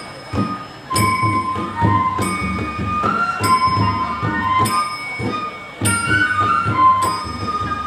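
Bodo traditional Kherai dance music played live: a bamboo flute (sifung) plays a wavering melody over steady drum beats, with a bright cymbal clash about once a second.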